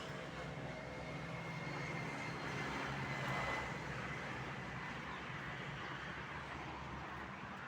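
Steady rumble of road traffic going by, with an engine fading out just as it begins.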